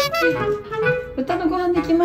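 Background music: a light melody of short stepping notes over a steady beat.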